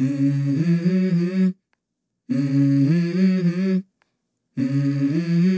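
Background music: the intro of a song, three wordless hummed vocal phrases of held, stepping notes, each about a second and a half long, with silent gaps between them.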